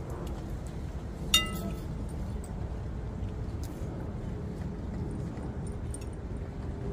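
A single sharp clink of a hard object being struck, ringing briefly in a few clear tones, about a second and a half in, over a steady low background rumble.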